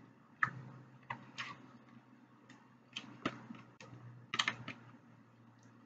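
Eating sounds of a steak soft taco being chewed and handled: about a dozen small, irregular clicks and smacks, with a quick cluster a little past the middle.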